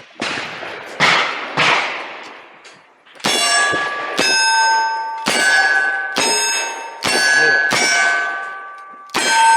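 Revolver shots at steel targets: a few sharp bangs in the first two seconds, then a steady string of shots about a second apart, each followed by the ringing of a struck steel plate.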